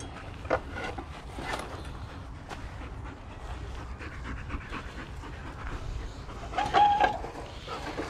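A dog panting, with a short high-pitched tone about seven seconds in.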